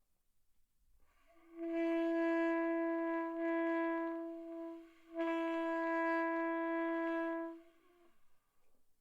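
Saxophone played by a beginner: two long held notes on the same pitch, the first starting about a second and a half in, the second following a brief break about five seconds in.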